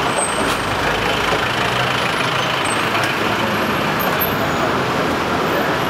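Steady road traffic noise: a continuous rumble and hiss of passing motor vehicles.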